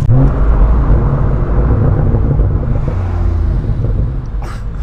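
BMW 135i's turbocharged straight-six through a race catback exhaust with the muffler removed, heard from inside the cabin while driving: the engine pulls loudly with a short rise in pitch at the start, then eases to a steadier drone near the end.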